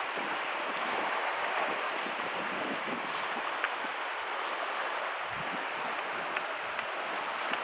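Steady wash of sea surf, with a few faint clicks.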